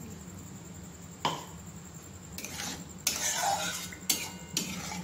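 Metal spatula stirring in a metal kadai as water is added to the masala: a few sharp knocks against the pan and a longer scraping stretch just past the middle.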